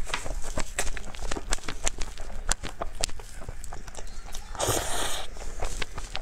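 Close-miked wet mouth and jelly sounds of eating a soft blue crystal jelly: many irregular sticky clicks and smacks as it is pulled, spooned and chewed, with a loud slurp about four and a half seconds in.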